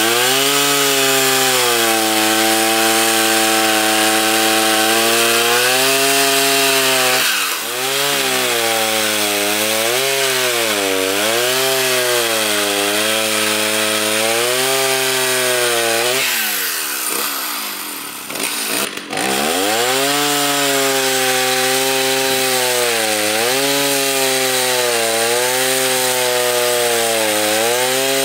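Two-stroke gas chainsaw cutting firewood logs at full throttle, its pitch sagging and recovering as the chain bites into the wood. About two thirds of the way through the engine falls back almost to idle, then revs up again for the next cut.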